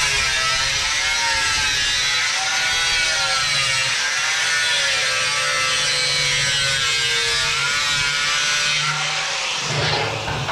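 Handheld angle grinder grinding into the steel end of a stainless steel drum, a steady whine over a harsh hiss, the whine wavering in pitch. Near the end the grinding stops.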